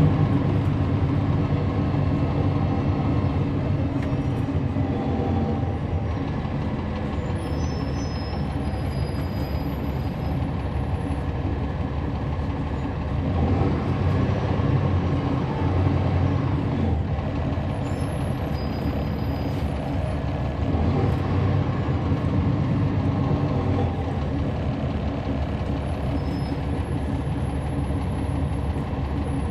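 A NABI 40-foot transit bus's Cummins ISL9 inline-six diesel engine running under way, heard from inside the passenger cabin. The engine noise swells louder about halfway through and again a little later.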